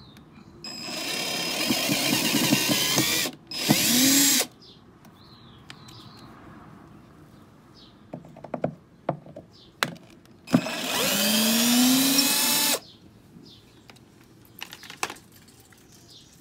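Cordless drill-driver turning the mounting screws of a car amplifier. It runs in bursts: a long run of a couple of seconds with a short one right after, then another run of about two seconds near the end with its pitch rising. Faint clicks of handling come between the runs.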